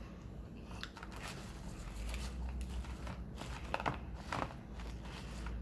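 Plastic salad packaging being handled: scattered crinkles and light clicks.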